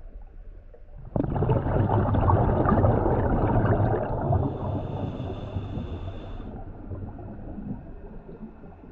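Scuba diver's exhaled breath bubbling out of the regulator, starting suddenly about a second in and fading away over several seconds, heard underwater against a low rumble. A thin high hissing tone runs briefly in the middle as the bubbling dies down.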